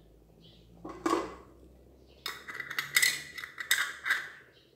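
Metal screw-on lids being twisted shut on glass preserve jars, clinking and scraping metal on glass: one knock about a second in, then a run of clicks and scrapes over the next two seconds.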